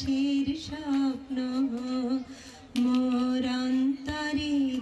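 A woman singing a melody into a microphone, holding long notes, with a short break about two seconds in.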